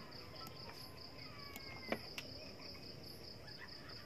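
Crickets trilling steadily in a high-pitched continuous chirr, with two faint sharp ticks about two seconds in.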